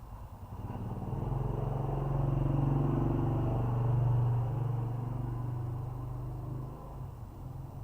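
A deep, low rumble that swells over a couple of seconds, holds, then fades away.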